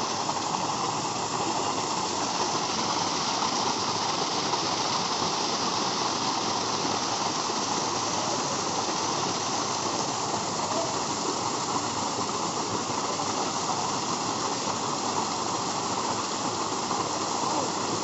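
Small waterfall pouring between boulders into a shallow rock pool: a steady, unbroken rush of splashing water.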